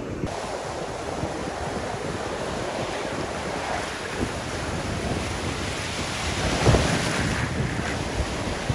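Gulf of Mexico surf breaking and washing up the beach in a steady rush, with wind buffeting the microphone. One wave breaks louder about two-thirds of the way through.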